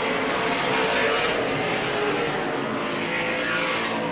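Late model stock cars racing around a short oval track, several engines running hard together in a loud, steady drone.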